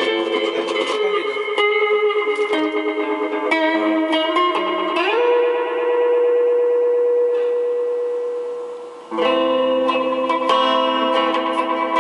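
Guitar played through an Ibanez Soundtank digital delay pedal, a melody of plucked notes and chords. About five seconds in, one note is held and fades for some four seconds. Chords resume sharply near the nine-second mark.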